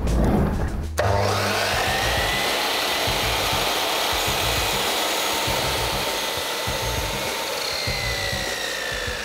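Dnipro-M sliding mitre saw switched on about a second in, its motor whine rising as the blade spins up to full speed, then running steadily. Near the end the pitch drops as the blade cuts into a clamped wooden board under load.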